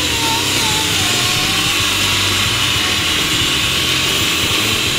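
Black+Decker food processor motor running steadily, grinding Oreo cookies into crumbs.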